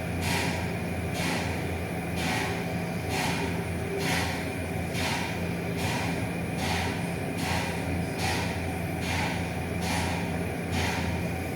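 Repeated banging noises at a steady rhythm of about one a second, over a constant low hum.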